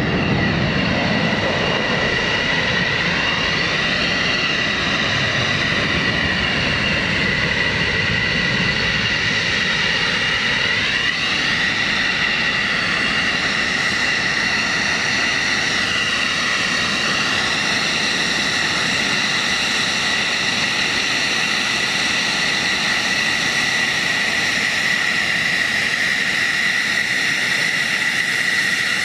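Fighter jet's turbine engine running with a steady high whine over a constant rush, its pitch sagging and recovering slightly a few times.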